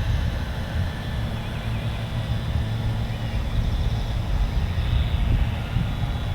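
Wind buffeting the microphone as a loud, gusty low rumble, with the faint high whine of a small quadcopter drone's propellers, a Parrot Anafi flying a boomerang manoeuvre, just audible above it.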